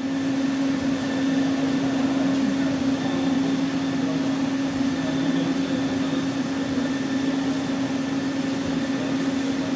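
Garlic sorting machine running with a steady hum that holds one low tone.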